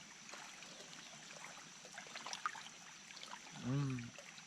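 Quiet woodland background: an even hiss like running water with a steady thin high tone over it and scattered small crackles. Near the end a man gives a short 'mm' of approval while tasting the fresh camp bread.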